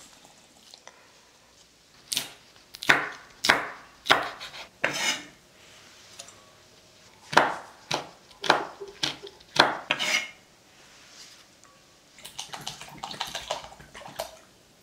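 Kitchen knife chopping on a wooden cutting board, single sharp chops about half a second apart in two runs, cutting red chili pepper. Near the end, water poured from a plastic bottle into a glass bowl, a quick crackly patter.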